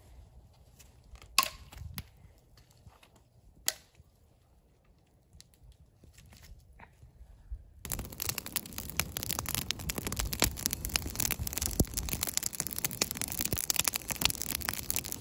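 Two sharp knocks of split wood being laid onto a campfire, about a second and a half and three and a half seconds in. From about eight seconds in, the wood fire close up, burning hard with dense, steady crackling and hiss.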